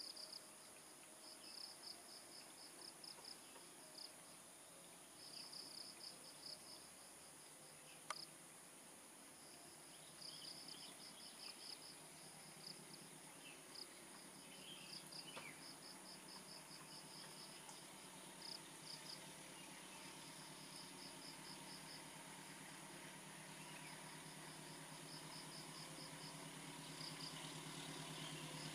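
Faint insect trills pulsing on and off in runs. Beneath them, the low engine hum of an approaching diesel locomotive slowly grows louder towards the end.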